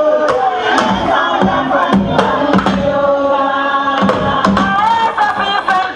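Dance music playing loudly: a singing voice holding long, gliding notes over drums struck about twice a second, with crowd noise underneath.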